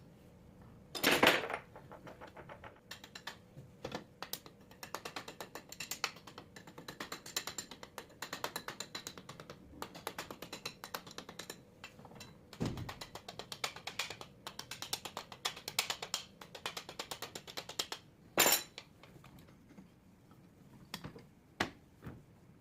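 Runs of rapid light clicks and taps from hand tools working on an alternator, with two louder knocks: one about a second in and one near the end.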